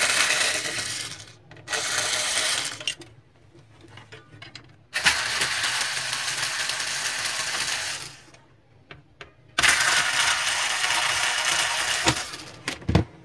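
Power screwdriver backing screws out of the printer's gearbox frame: four runs of a second to three seconds each, with short pauses and a few small clicks of loose screws and parts between them.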